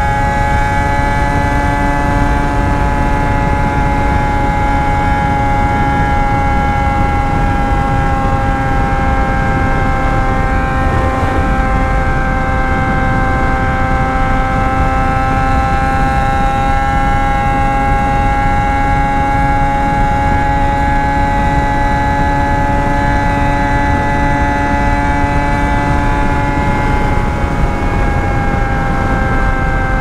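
Yamaha FZ6 Fazer 600 inline-four with a straight-through 'só o cano' exhaust (no muffler) running under way at high, nearly steady revs, with wind rush on the microphone.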